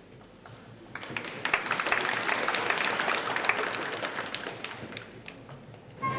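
Theatre audience applauding: the clapping swells about a second in and dies away. An orchestra starts playing right at the end.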